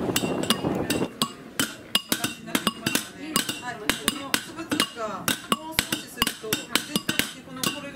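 Hand pounder striking stone fragments in a box, crushing them to powder: an irregular run of sharp clinking strikes, about three a second, starting about a second in.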